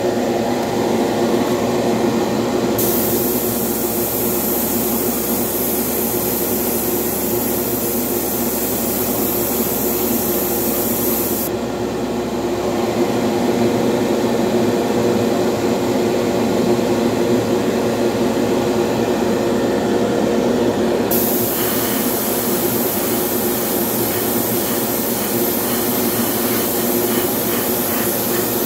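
Spray booth exhaust fan running steadily, with an airbrush hissing as it sprays paint in two long spells: from a few seconds in until a little before the middle, and again from about two-thirds of the way through.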